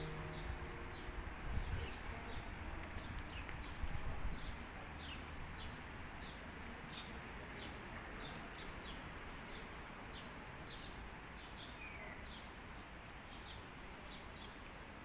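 A small bird repeating a short, high, falling chirp over and over, about two calls a second, over a faint steady high hiss of outdoor ambience.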